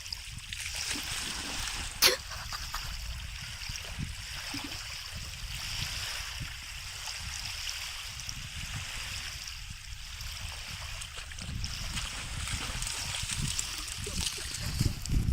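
Sea water washing and splashing at the shore, a steady hiss with a low rumble beneath it; a single sharp click about two seconds in.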